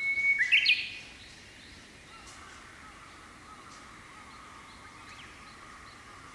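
Japanese bush warbler singing: a held whistle that breaks into a quick, sharp 'hokekyo' flourish about half a second in. After it, fainter distant bird calls continue.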